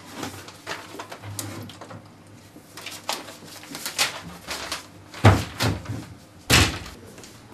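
Plastic water bottles being handled and pulled off a cabinet shelf: a string of light knocks and crinkles of thin plastic, with two louder thumps near the end.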